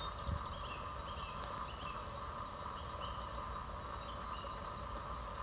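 Outdoor riverside ambience: a steady high buzzing chorus runs throughout, with short bird chirps near the start, at about 1.5–2 s and at about 4 s. A single low thump comes just after the start.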